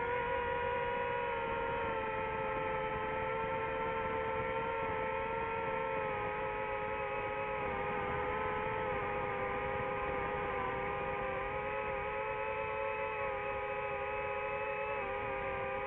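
DJI FPV drone's motors and propellers whining steadily while it hovers, several pitched tones sagging slightly in pitch over the first few seconds.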